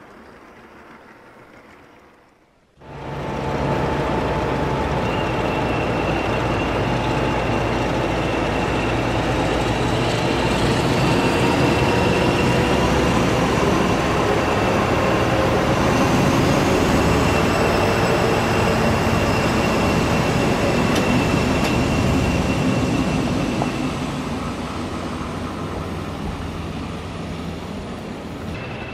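Diesel train running: a steady engine note with rail noise and a high whine, starting suddenly about three seconds in after a faint stretch, easing off a little near the end.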